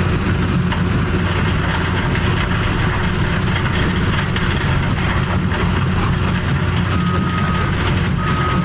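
Heavy machinery's diesel engine running steadily with a deep hum, and two short high beeps about seven and eight seconds in.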